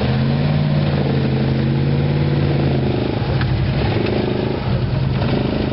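ATV engines running hard while a quad strains on a tow rope to pull a pickup truck out of mud. The engine note holds steady, then eases off about three seconds in.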